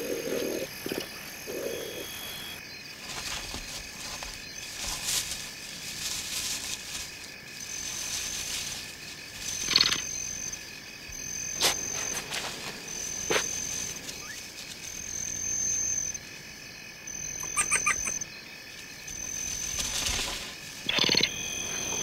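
Night chorus of insects and frogs, with short high chirps repeating every second or two. It is broken by a few sharp clicks and a quick run of clicks near the end, which are the clicking calls of a female honey badger.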